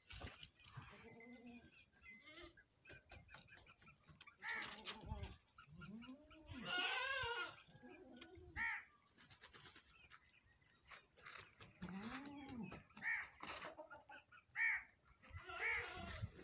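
Goats bleating: short, low calls at intervals, and one louder, wavering bleat about seven seconds in. Short high chirps come in between.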